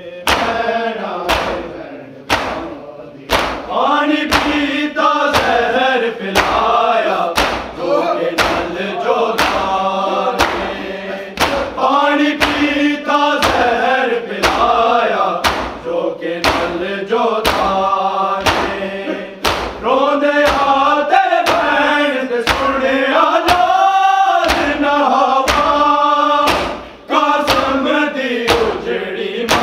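A noha, a Shia lament, chanted by a group of voices in unison, kept in time by steady chest-beating (matam) thumps about once a second.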